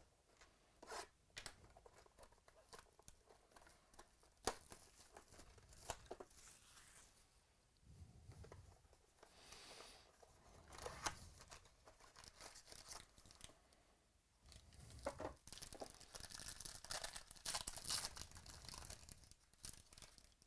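Faint tearing and crinkling of the wrapper on a box of trading cards being opened, with scattered small clicks and rustles of handling.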